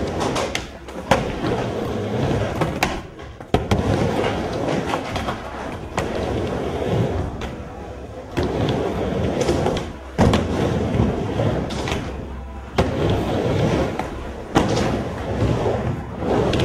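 Skateboard wheels rolling back and forth on a wooden miniramp, with sharp clacks of the board every two to three seconds.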